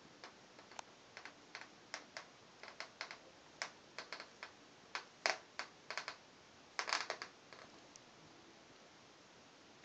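Moluccan cockatoo grinding its beak: irregular runs of short, dry clicks from the lower mandible scraping against the upper, thickest a little past the middle and stopping near the end. Beak grinding like this is the sign of a relaxed, content bird settling down.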